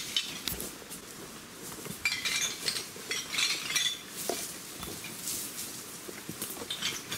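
Irregular clinks and rattles of dumped rubbish being picked up and handled in dry undergrowth, with rustling of leaves and twigs between them.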